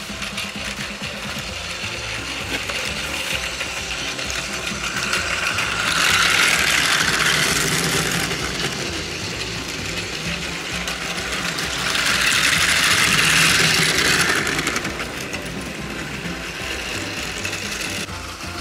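Plarail battery-powered toy trains running along plastic track, a steady whirring rattle of small motor and wheels that grows louder twice, around a third and two-thirds of the way through, as trains pass close by.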